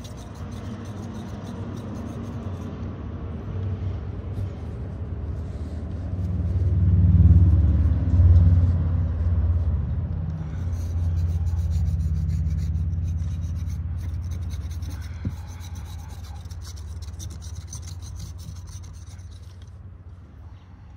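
Hand seam roller and palm rubbing over a freshly glued canvas patch, pressing it down. It makes a low rubbing rumble that swells, is loudest about a third of the way in, and then slowly eases off.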